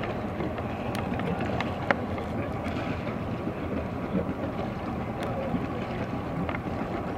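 Steady wind noise on the microphone, with faint distant voices and a few short, sharp clicks.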